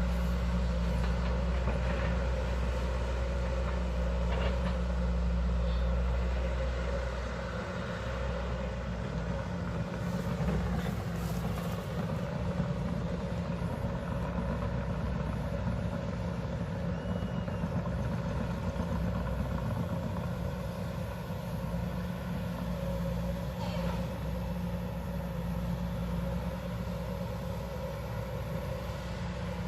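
Hydraulic excavator's diesel engine running steadily. Its low rumble eases about seven seconds in, and a few clanks come around ten to twelve seconds.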